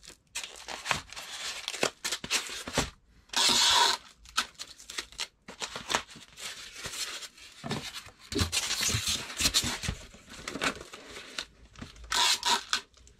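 Packing tape being pulled off its roll and pressed around a small cardboard box, with rustling and handling between strips. There are two loud rips of tape, about three seconds in and again near the end.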